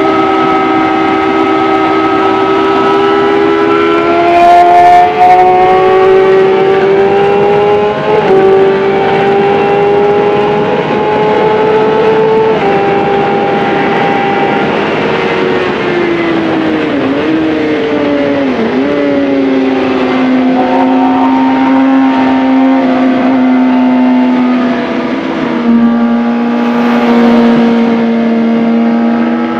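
Onboard sound of a 2011 Suzuki GSX-R 750's inline-four engine, fitted with a quick shifter, pulling hard up through the gears with quick upshifts. It then drops in pitch under braking with brief blips on the downshifts, and runs at a steady lower pitch through the corner.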